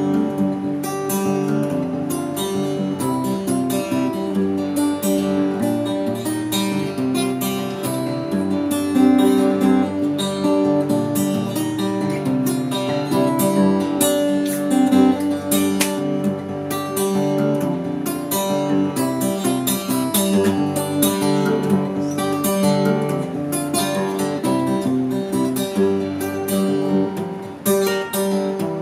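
Solo steel-string acoustic guitar playing an instrumental tune, a continuous run of notes with no singing.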